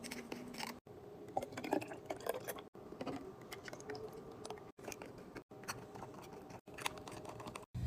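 Light, irregular clicks, taps and rustles of drinks and packaged items being handled while a mini fridge is restocked, broken by several abrupt edit cuts.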